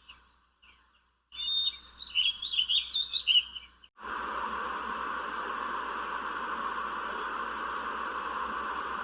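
White noise sound machine playing its birdsong track: quick chirping bird calls for a few seconds. About four seconds in, the birdsong stops abruptly and a steady, even hiss takes over.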